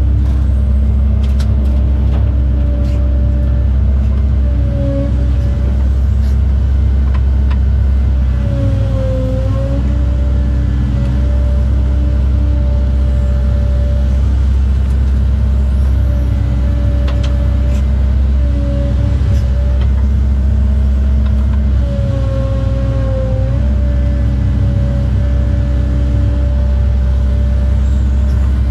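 Cat 309 excavator's diesel engine running steadily under working load, heard from inside the cab, with a whine that dips in pitch twice as the hydraulics work the boom and bucket.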